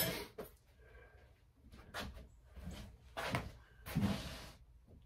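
Hand tools being handled at a workbench: a few separate metal clinks and knocks, and a clatter lasting about half a second just after four seconds in.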